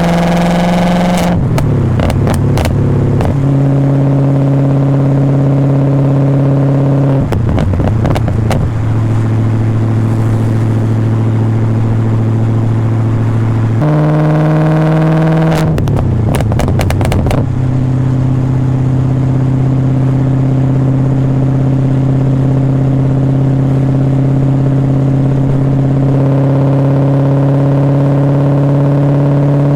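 BMW E39 540i's 4.4-litre V8 through a straight-pipe exhaust and Summit Racing muffler, pulling under acceleration with the pitch climbing. Each time the throttle comes off, the climb breaks into a burst of crackles and pops, then settles into steady cruising. This happens three times.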